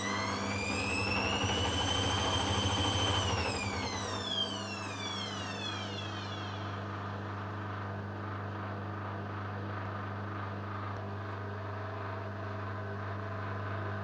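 Hoover Dynamic front-loading washing machine's spin motor whining high, then about three seconds in the whine falls away as the drum slows, leaving a steady low hum. The spin is being cut short by a suds lock, the machine detecting too much foam in the drum.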